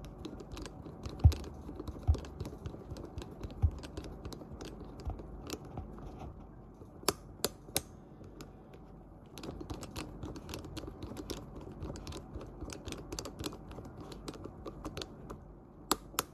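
Irregular small clicks and ticks of a precision screwdriver bit driving in the pentalobe screws at the bottom edge of an iPhone 12 Pro's metal frame. There are a few low knocks in the first few seconds.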